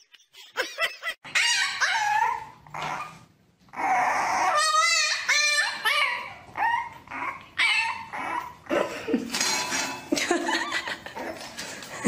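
A dog barking and whining: a string of short, high yips and drawn-out whines that rise and fall in pitch, with a warbling howl about halfway through.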